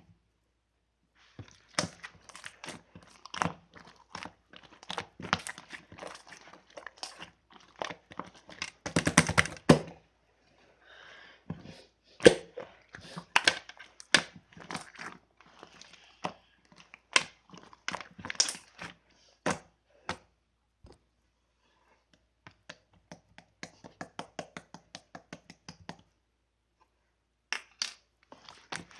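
Crinkling, tearing handling noises with many sharp clicks and crackles, a dense rattle of clicks about a third of the way in, and a quick run of light, even clicks near the end.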